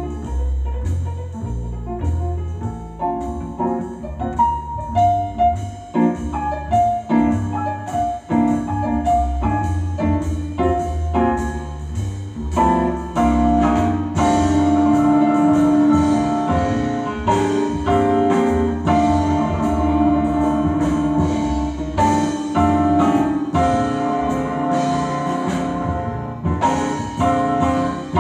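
Jazz with piano playing through a Sonus Faber Extrema standmount loudspeaker, heard in the room: single notes over a bass line at first, then fuller, sustained chords from about halfway in.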